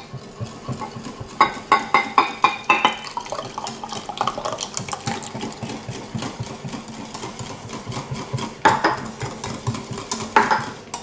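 Large wire hand whisk beating a body-cream emulsion in a Pyrex glass measuring jug, its wires clicking and scraping rapidly against the glass, with a couple of louder clatters near the end.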